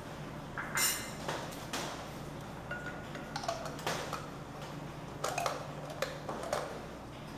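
Saucepan of tom yum soup simmering on an electric hotplate: scattered light clicks and clinks, a few at a time, over a steady low hum.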